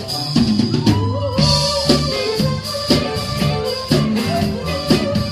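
Live band playing a disco-funk song: drum kit keeping a steady beat under bass guitar and electric guitars.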